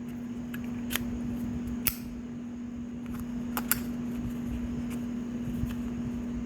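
A few sharp, light clicks from small metal Zippo lighters being handled, over a steady hum.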